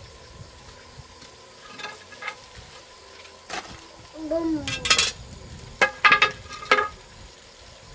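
Hand work on an electrical cable on a concrete floor: a sickle blade scraping and cutting plastic wire insulation, then set down, and the stripped wire handled. It comes as scattered sharp clicks and scrapes, with the loudest clusters just before five seconds in and from about six to seven seconds.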